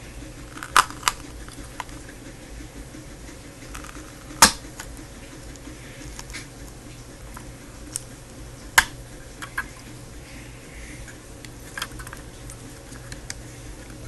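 Fingers handling a ribbon cable and its tape on a laptop hard drive: scattered sharp clicks and taps, the loudest about four and a half seconds in, over a steady low hum.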